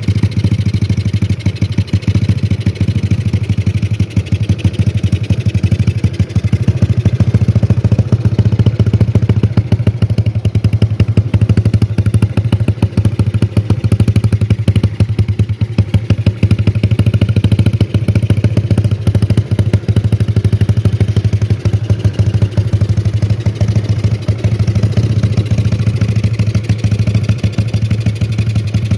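Motorcycle engine running steadily, a dense even low pulsing that neither revs up nor dies away.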